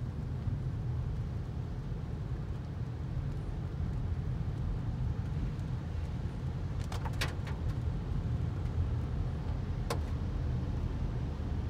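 Steady low rumble of a car's engine and road noise heard from inside the cabin in slow traffic. A few sharp ticks come about seven seconds in and again near ten seconds.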